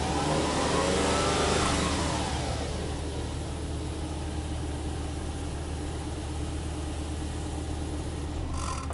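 Subaru Impreza hatchback 1.5i-S's 1.5-litre flat-four engine, heard at the exhaust. It is revved once with the car standing, the pitch rising and then falling back within the first couple of seconds, and then settles to a steady idle.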